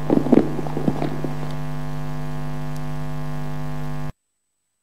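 Steady electrical mains hum through the microphone and sound system, loud and buzzing with many overtones, with a few brief voice sounds in the first second or so. The hum cuts off abruptly to dead silence about four seconds in.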